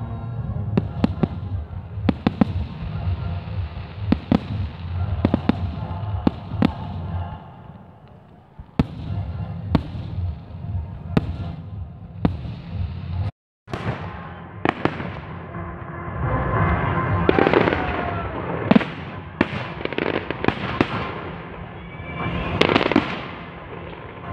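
Aerial firework shells bursting one after another in a salute display: a steady run of sharp bangs, coming denser and busier in the second half.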